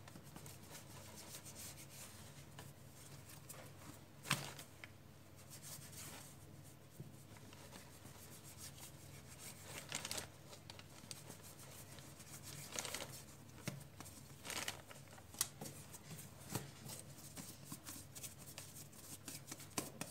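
Faint handling noise of a plastic dough scraper cutting through soft yeast dough and of hands working the dough on a stone counter, with a few sharp clicks as the scraper meets the counter, the loudest about four seconds in.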